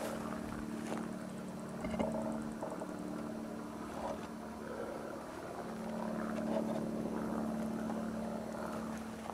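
A steady mechanical drone, like an engine or motor running at constant speed, with a few faint knocks.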